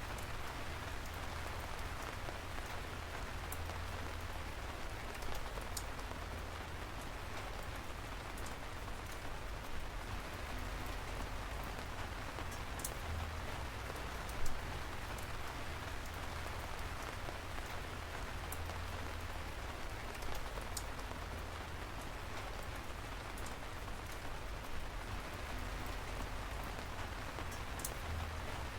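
Steady rain falling on surfaces, with the sharp ticks of individual drops scattered through it and a deep low rumble underneath.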